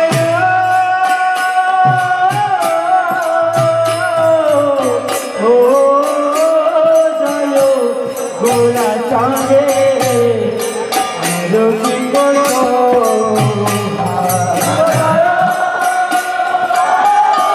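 Kirtan: voices chanting a mantra in long, slowly gliding phrases over a steady run of sharp hand-cymbal (kartal) strikes.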